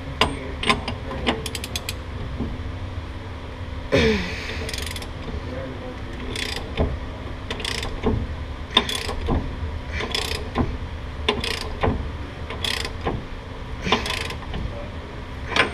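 Ratchet wrench clicking in repeated short strokes as it tightens the pinion nut on the rear differential, with a quick run of clicks near the start and a brief falling squeak about four seconds in. The nut is still being run down toward its marks and is not yet snug.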